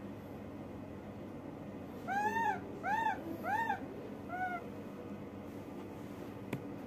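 Baby macaque giving four short coo calls in quick succession, each rising then falling in pitch, the last one softer. A single sharp click near the end.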